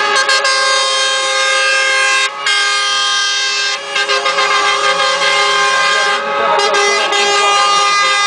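Truck air horns blowing in long held blasts, several pitches sounding together as a chord, with short breaks about two, four and six seconds in.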